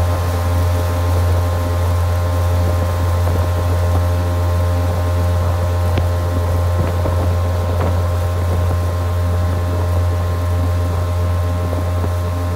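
Fishing boat's outboard motor running steadily at speed, with wind and the rush of water from the wake.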